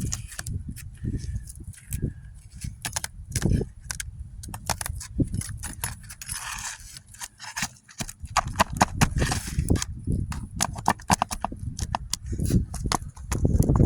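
Irregular clicking, knocking and scraping of hand tools working on old roof shingles: prying them up and working at the nails, with the brittle shingles tearing.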